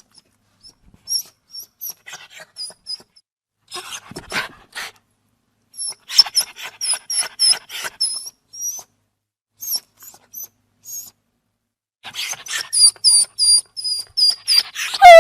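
Dog whimpering: clusters of short, very high-pitched squeaks with bursts of breathy noise between them, ending in a louder, lower whine.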